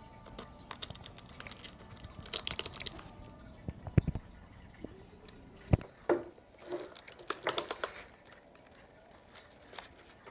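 Hands fitting a LiPo battery pack into an RC truck's plastic chassis: scattered clicks, a few sharp knocks of hard plastic, and two short rasping, tearing stretches.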